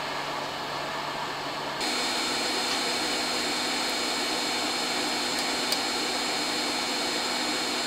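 Hot air rework station blowing onto a surface-mount chip to melt its solder so it can be reworked: a steady rushing hiss that gets louder about two seconds in and then holds steady.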